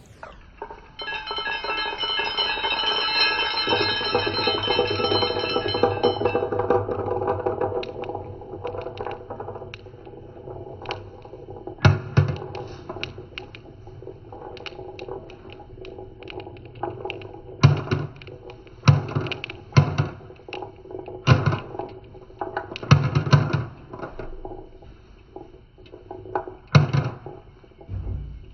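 Marbles running down a metallophone slope, striking its metal bars in a quick, dense run of ringing notes for the first several seconds. After that, marbles roll and clack along wooden track, with a series of sharp knocks.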